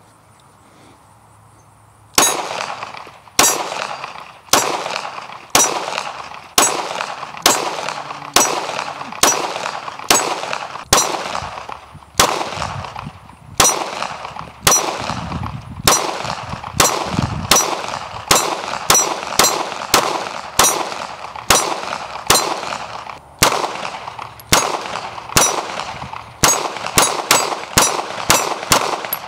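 Shots from a 9mm Palmetto State Armory Dagger pistol fitted with a Timney Alpha trigger, fired in a long steady string at about one to two shots a second. Each shot is sharp and rings briefly. The string starts about two seconds in, with short breaks twice.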